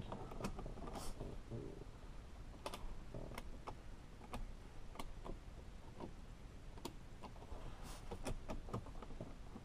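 Irregular light clicks and taps of small metal parts and hand tools being handled while fitting a steering wheel hub, with a short scrape near the end.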